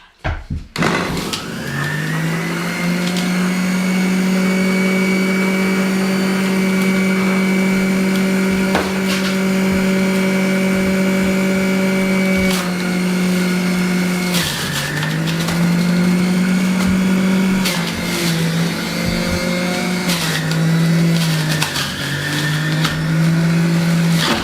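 Electric blender running, chopping and pureeing cut lime and apple. The motor spins up about a second in to a loud, steady whine. In the second half its pitch sags and recovers several times as the fruit loads the blades, with a few knocks of pieces hitting the jar.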